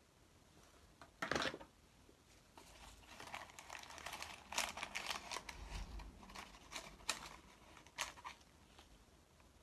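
Faint crinkling and rustling of plastic, with scattered light clicks, from gloved hands scooping fertilizer with a small measuring spoon. The busiest handling comes about a second in and again in the middle.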